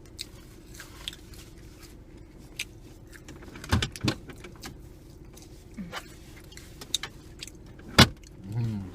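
Scattered small clicks and a few sharp knocks from food and containers being handled while eating, over a faint steady hum. The loudest knocks come at about four seconds in and again near the end.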